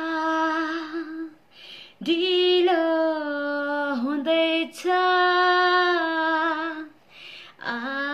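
A young woman singing a Nepali song unaccompanied: phrases of long held, wavering notes broken by short breaths.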